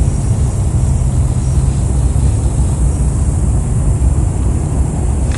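Wind buffeting the microphone: a steady, loud low rumble with no pitch or rhythm.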